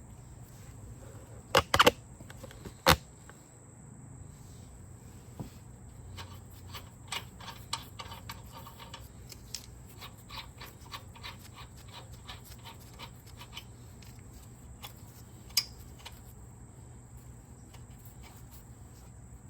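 Sharp metal clanks, two close together and a third a second later, then scattered light clicks and taps from tools and parts being handled, over a steady low hum.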